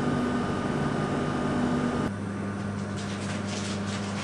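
Steady low electrical hum over hiss, which changes abruptly about two seconds in, followed by faint irregular taps or rustles.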